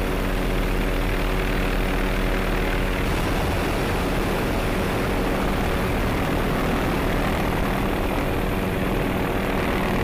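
MD 530F light helicopter in flight, its turboshaft engine and rotors running steadily. About three seconds in, a steady hum of pitched tones gives way to a rougher, more even noise.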